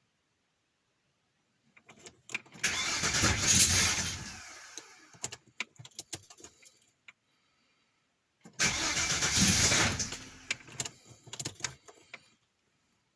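Opel Omega B V6 engine heard in two short bursts, each loud for about a second and a half and then dying away over a couple of seconds with scattered ticks, with dead silence between them. The owner says the engine has a knocking piston.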